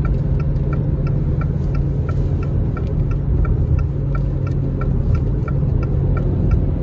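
Inside a moving car at highway speed: a steady low rumble of engine and road noise, with a light ticking about three times a second.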